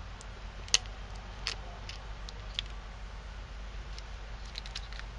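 Small, irregular plastic clicks and ticks from a small flat-blade screwdriver prying at the trackball ring of a BlackBerry Curve 8300 to pop it off. The sharpest click comes about three-quarters of a second in, and a quick cluster of clicks comes near the end.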